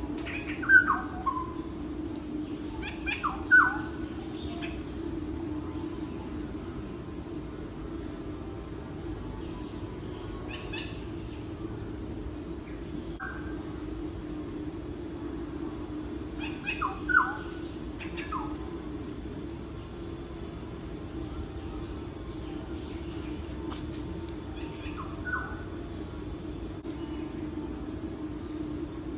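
Birds chirping in short, falling calls over a steady, pulsing insect drone, like a nature ambience track.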